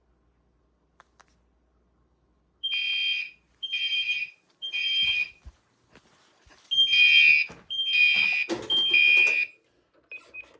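Fire alarm horn sounding in the temporal-three evacuation pattern, set off by a manual pull station: silence, then three beeps, a pause, and three more beeps, starting about two and a half seconds in.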